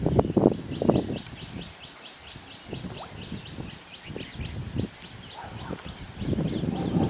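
A bird calling in a fast, even run of short high notes, about four a second, fading toward the end. Low rumbling noise, louder than the calls, comes at the start and again near the end.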